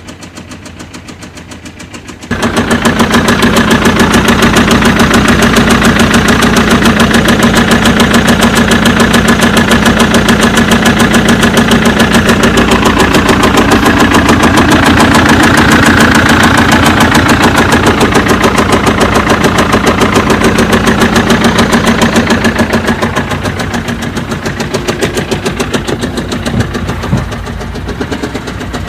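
BMW engine running at idle with a rapid, even tapping knock, the abnormal engine clatter ("tab tab tab") under investigation. It gets much louder about two seconds in and eases somewhat near the end.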